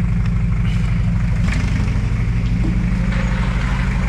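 Car engine idling steadily with an even low pulse.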